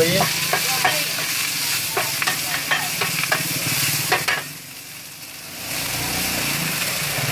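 Metal spatula scraping and tapping on a large shallow steel pan as greens and bean sprouts are stir-fried, sizzling in hot oil. A quick run of sharp scrapes and clinks fills the first four seconds, then the sound drops briefly before the sizzle picks up again.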